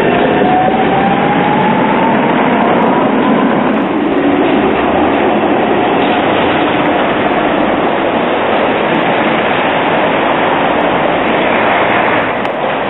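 A Tatra tram passing close, its motor whine rising steadily in pitch over the first few seconds as it pulls away, over a loud, steady rumble of steel wheels on rails. A Škoda ForCity low-floor tram then runs by on the cobbled track.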